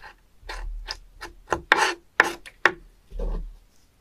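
A knife cutting and scraping through slimy penis fish (spoon worm) flesh on a wooden cutting board. It makes a run of separate rasping strokes, with three sharp knocks of the blade on the board in the middle.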